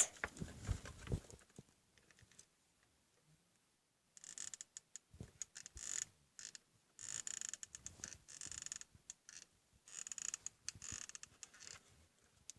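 Cardboard being handled and pressed while a tab is glued down: a few soft thumps at the start, then after a pause, repeated short scratchy rustles and light ticks.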